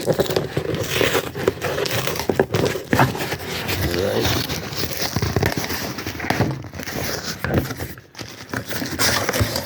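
Packaging being crinkled and torn open by hand: a dense run of irregular crackles, rustles and tearing.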